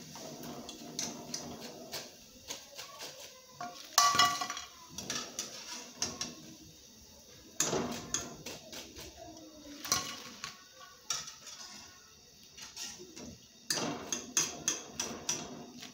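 Slotted steel skimmer clanking and scraping against a metal kadhai as fried pakoras are scooped out of hot oil: scattered sharp metallic knocks, the loudest about four seconds in, and a quick run of taps near the end.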